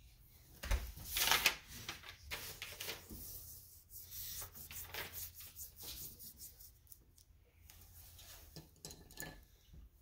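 Irregular rustling and scraping of paper and painting things being handled on a tabletop, loudest about a second in and thinning out near the end.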